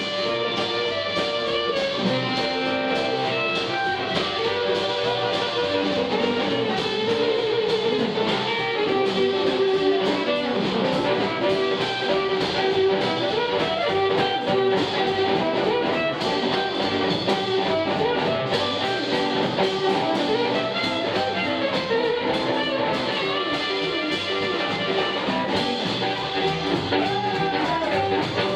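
Live blues band playing an instrumental break, with electric guitar to the fore over double bass and drums.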